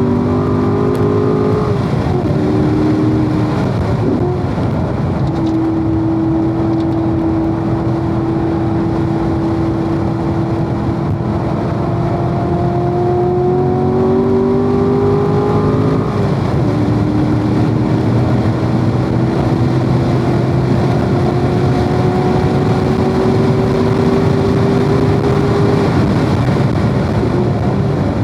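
Corvette's V8 under hard acceleration on a race track, its pitch climbing slowly through long pulls. It breaks off for lifts and downshifts about two and four seconds in, again between fourteen and sixteen seconds, and near the end.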